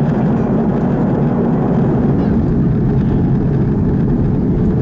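Airbus A330-300 cabin noise in flight: a steady rush of airflow and engine drone, with no changes.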